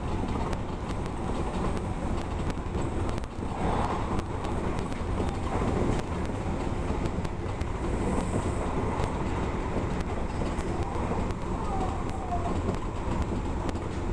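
Odakyu electric commuter train running along the line, heard from inside the front car: a steady rumble of wheels on rail, with many light clicks from the running gear and track.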